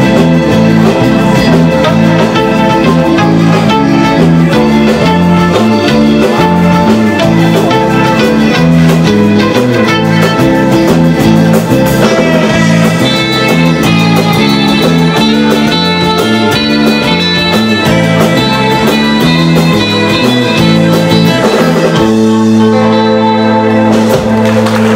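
Live rautalanka band playing an instrumental: twangy electric lead guitar over rhythm guitar and bass. About 22 seconds in the tune ends on a long held final chord.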